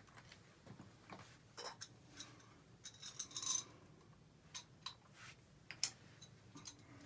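Scattered light clicks and metallic clinks of hand tools and faucet parts being handled at a tub and shower valve, with a short scraping sound about halfway through and a sharp click near the end.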